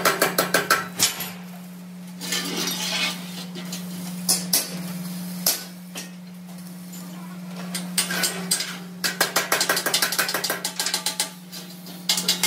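Stick welding and hammer work on a square steel-tube frame: bursts of crackling and quick sharp taps on metal that come and go in clusters, the densest run about eight to eleven seconds in, over a steady low hum.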